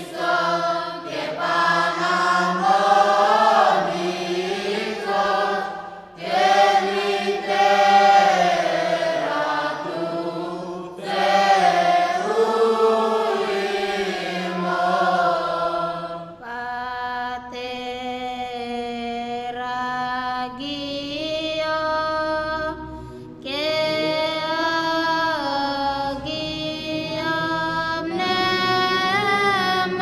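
A children's choir chanting a hymn in Greek in the Orthodox manner, in phrases with short breaks between them. After about sixteen seconds the singing becomes thinner and clearer, as of fewer voices.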